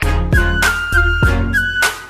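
Background music: a high melody over a steady drum beat.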